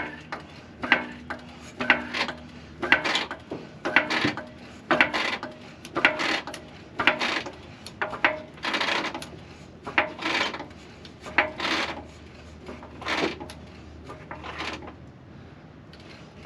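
Harbor Freight Badland 3-ton off-road floor jack being pumped by its handle, about one stroke a second, each stroke a creaking, rasping scrape, slowing a little near the end. The jack is raising a Jeep CJ7 by its frame.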